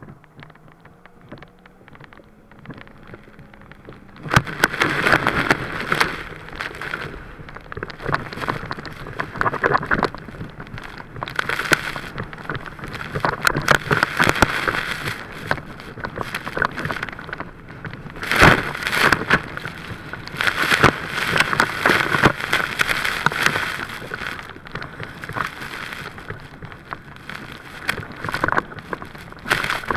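Water spray and churned wake rushing and splashing over an inflatable towable tube pulled fast behind a jet ski, with wind buffeting the microphone. It starts fairly quiet over a faint engine hum that rises a little. About four seconds in the rush of spray comes in suddenly, and it stays loud with repeated surging splashes.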